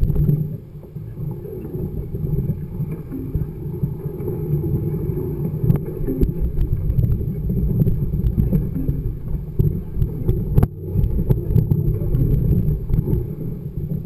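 Mountain bike rolling over a dirt and gravel track: a continuous low rumble of the knobby tyre and wind buffeting the microphone, with scattered sharp clicks and knocks that come thickest near the end.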